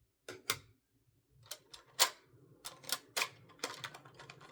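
Plastic LEGO pieces clicking and clacking as they are handled and pressed together: about ten sharp, irregular clicks, the loudest about two seconds in.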